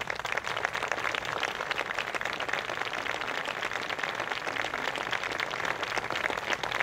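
Crowd of wedding guests applauding: many hands clapping in a dense, steady patter.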